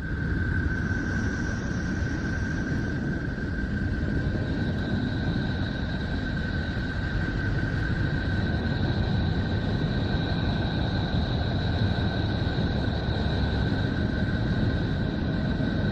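A 'space sound' of a planet or moon, the kind made from spacecraft recordings turned into audio: a steady deep rumble with a thin whistling tone held above it, and a fainter higher tone joining about four seconds in.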